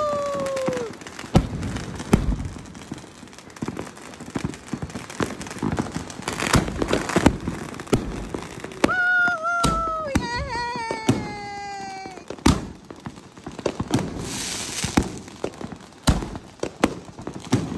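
Fireworks and firecrackers going off: a steady scatter of sharp bangs and pops, with a few long tones that slide down in pitch about halfway through and a short hiss a little later.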